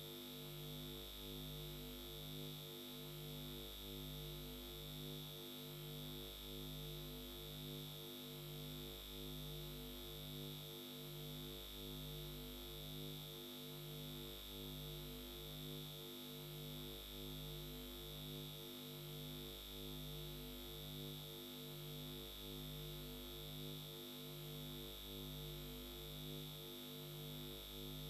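Steady electronic hum and high whine, its low tones pulsing evenly a little faster than once a second.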